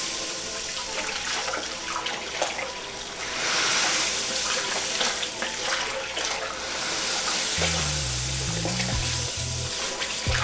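Crushed malt grain poured from a bucket into the mash water of an electric brew-in-a-bag kettle at mash-in: a steady rushing pour, louder from about three and a half seconds in. Background music with a bass line comes in near the end.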